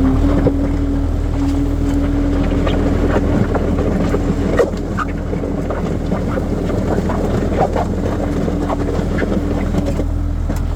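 Skid steer engine running steadily under load, with scattered knocks and clattering from the machine at work, starting about two seconds in.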